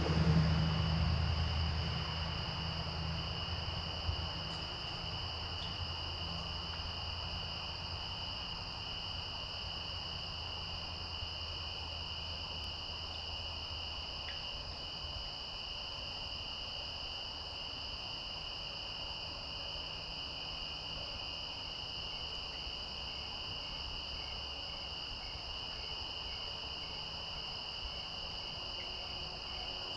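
Steady insect chorus of crickets or similar singing insects, a continuous high-pitched sound that does not change. A low rumble underneath fades away over the first half.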